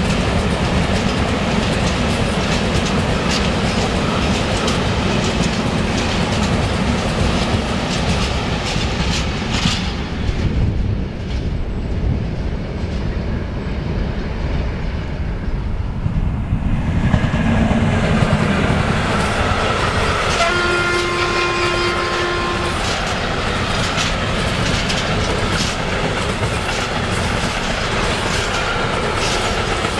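Freight trains passing close by, their wheels clattering over the rail joints as covered hopper wagons roll past. The noise eases for a few seconds midway, then a train horn sounds one steady chord for about two seconds, and a train of container flat wagons clatters past.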